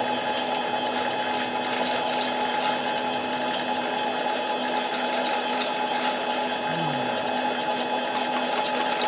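A 7x10 benchtop mini lathe running at slow speed with its chuck turning a chainsaw cylinder: a steady motor and gear whine, with an irregular light scratching over it.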